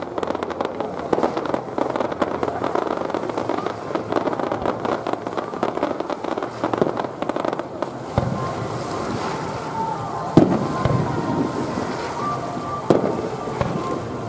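Aerial fireworks: dense, rapid crackling from glittering star shells for about the first eight seconds, then it thins out and a couple of sharp booms of single shells bursting follow in the second half.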